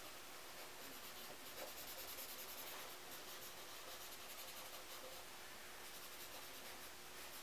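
Paper blending stump rubbed back and forth over graphite pencil shading on drawing paper: a faint, continuous scratchy rubbing as the rough pencil marks are smoothed and blended.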